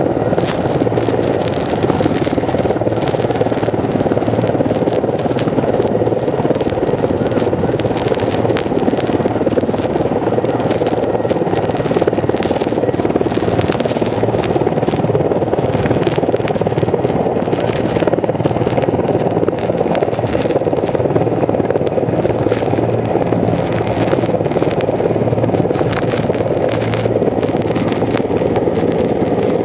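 Firefighting helicopter hovering low over a pond to take on water: a loud, steady rotor and engine noise. Many short crackles and rustles from leaves and branches close to the microphone run through it.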